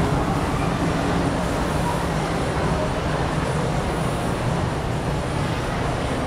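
Star Ferry running its engine against the pier, a steady low rumble with the churn of its propeller wash, over an even hiss of harbour noise.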